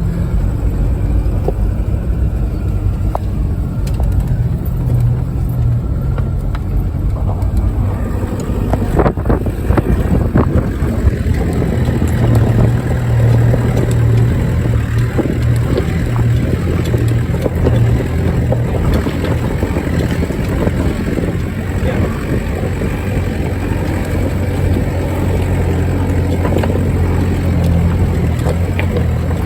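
4x4 engine running steadily at low revs as the vehicle crawls over a stony track, with scattered knocks and rattles from the rocks.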